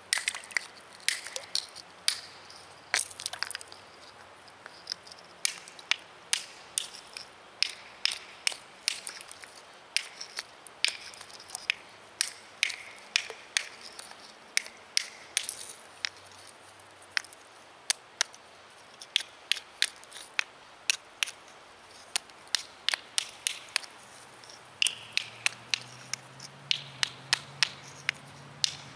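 Sharp stone-on-stone clacks in quick, irregular runs of several strikes with short pauses between. A flat stone slab is being struck against a boulder used as an anvil to knock off its corners and shape it.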